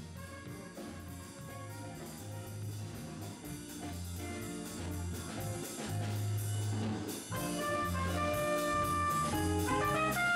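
Live small-group jazz: a trumpet plays the melody over bass notes and drums, getting louder in the second half.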